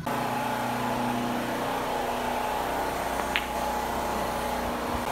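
A steady mechanical hum, like room machinery running, with one sharp click about three seconds in.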